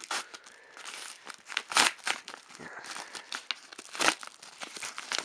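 Crinkly package wrapping handled and torn open by hand: irregular crackling and rustling, with sharper crackles about two seconds in and again near four seconds.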